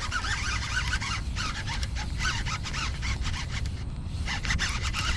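Fishing reel being cranked to bring in a bass hooked on a topwater lure: rapid, irregular clicking and ticking over a low wind rumble on the microphone.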